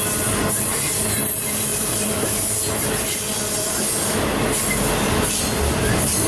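Intermodal freight cars carrying highway trailers rolling past close by: a steady, loud rolling noise of steel wheels on the rails, with faint thumps every second or so as the wheel sets go by.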